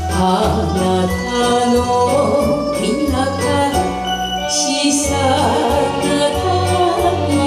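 A woman singing a Japanese song into a handheld microphone over a recorded backing track, with a steady bass line and a cymbal splash about halfway through.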